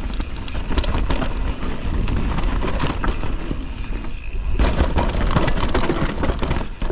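Canyon Torque Mullet full-suspension mountain bike descending a rough downhill trail at speed: tyres rolling over dirt and rocks, with the bike clattering in quick irregular knocks over the bumps. Heavy wind rumble on the microphone runs underneath.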